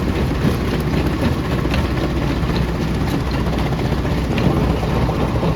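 Jaw crusher running with a steady heavy low rumble, with a few faint sharp knocks scattered through it.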